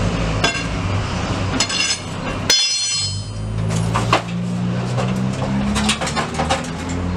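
Scattered metal clanks and knocks from a VW Beetle's front bumper being worked loose and pulled down, over a steady low hum. A sharp click and a brief dropout come about two and a half seconds in.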